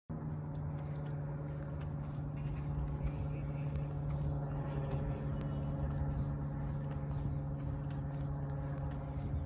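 Steady low mechanical hum with a constant droning pitch and a rumble beneath it.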